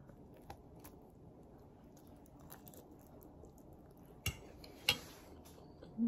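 Quiet eating at a table: faint chewing and small cutlery scrapes, then two sharp clinks of a metal fork and knife against a ceramic plate, about four and five seconds in.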